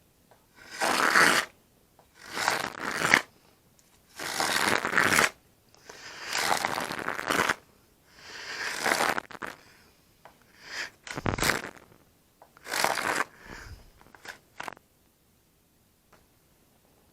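Razor plane shaving a balsa edge in about eight long scraping strokes, each about a second, roughly every two seconds, with one sharp knock about two-thirds through. The strokes thin to a few light clicks and stop near the end.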